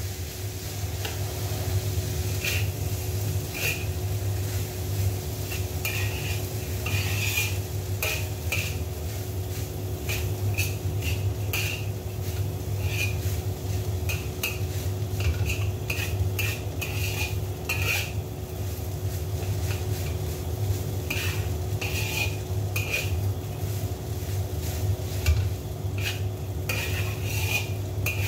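Metal spatula scraping and clanking against a wok while stir-frying rice: many irregular strikes that ring briefly, over a steady low hum.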